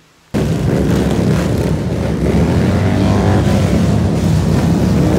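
Outdoor crowd sound recorded on a handheld phone, swamped by heavy wind buffeting on the microphone; it cuts in abruptly about a third of a second in, with faint voices under the rumble.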